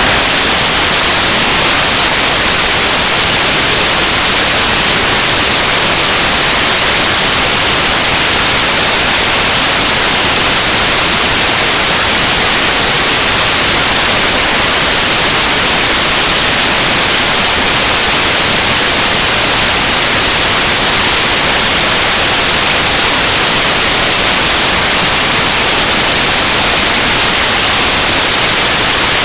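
Loud, steady static hiss that cuts in abruptly and drowns everything else, with no voice heard through it: the webcam's audio has broken down into noise.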